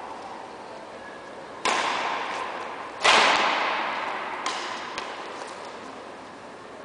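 Badminton rackets striking the shuttlecock in a rally: two sharp cracks about a second and a half apart, the second the louder, each ringing on in the echo of a large hall, then a couple of lighter taps.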